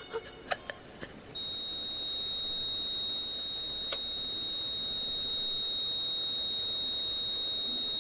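A single continuous high-pitched beep starts about a second and a half in and holds steady, a monitor's flatline tone marking the patient's death. A few faint clicks come before it, and one sharp click comes about halfway through.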